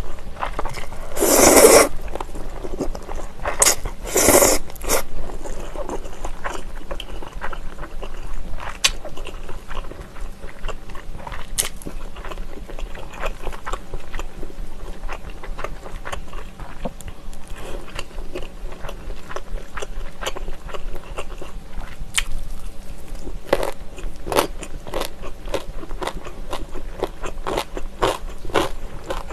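Spicy jjolmyeon noodles slurped and chewed close to the microphone: two loud slurps near the start, each about a second long, then a steady run of wet chewing and mouth clicks.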